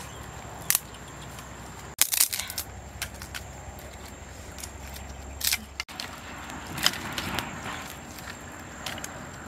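Dry sticks clattering and snapping as firewood is handled and laid on a small wood fire, a series of sharp cracks with the loudest cluster about two seconds in.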